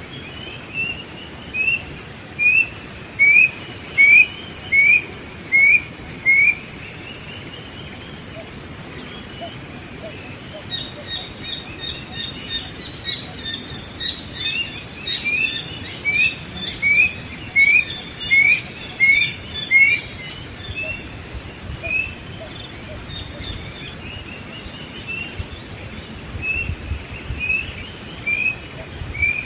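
Wild birds calling: one bird gives runs of short, rising whistled notes a little faster than one a second, and another bird chatters in quicker, higher notes midway, over a steady high insect drone.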